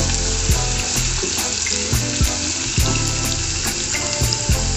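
Chopped onions, green chillies and cumin seeds sizzling steadily in hot oil in a pot, stirred with a wooden spatula, with soft background music underneath.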